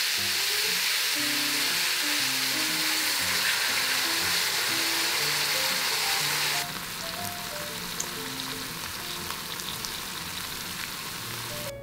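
Sauce sizzling hard as it hits chicken thigh pieces and thick fried tofu in a hot cast-iron pan. About two-thirds through, the sizzle drops suddenly to a softer simmering sizzle with a few light clicks.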